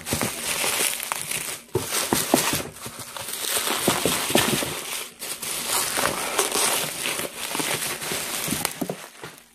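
Plastic bubble wrap crinkling and rustling as it is pulled off an item by hand, with many small sharp clicks.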